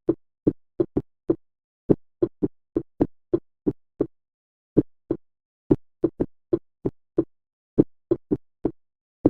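Heart sounds in atrial fibrillation without mitral stenosis: short, dull lub-dub beats at an irregular rhythm, with no murmur between them. The first heart sound varies in loudness from beat to beat.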